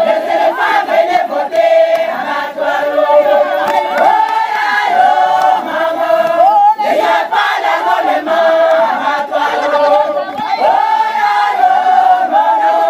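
A group of women singing and chanting together in many voices without instruments.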